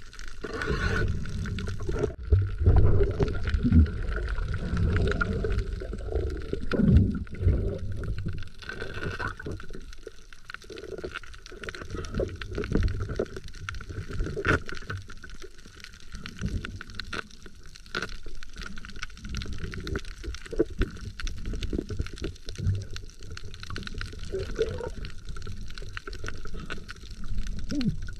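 Muffled underwater sound picked up by a submerged camera: low rumbling water movement with irregular knocks and bumps, loudest about three and seven seconds in.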